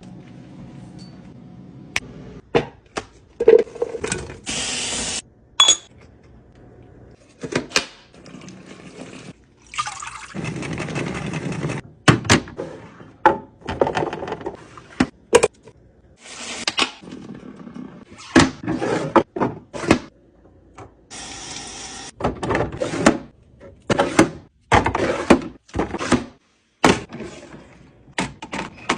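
Liquid being poured into containers in several spells of a second or two, between many sharp clicks and knocks of containers and lids being handled and set down.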